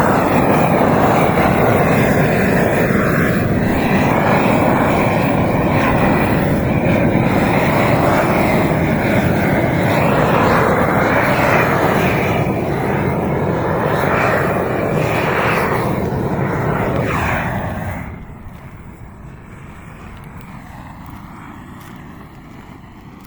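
Propane roofing torch burning with a steady rushing noise as it heats torch-on bitumen membrane. It drops much quieter about eighteen seconds in.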